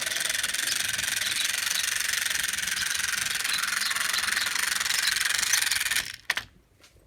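Steady hiss of steam, as from a steam locomotive, cutting off sharply about six seconds in.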